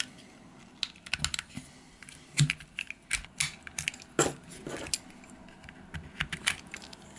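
Plastic housing of a VW Golf Mk2 dashboard rocker switch being handled and prised apart by hand: a run of small, irregular plastic clicks and snaps, the sharpest about two and a half and four seconds in.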